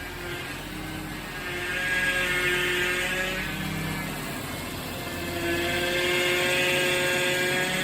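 Car power steering pump whining as the steering wheel is turned, over the idling engine; the whine swells louder twice. The owner traced it to low power steering fluid from a leak.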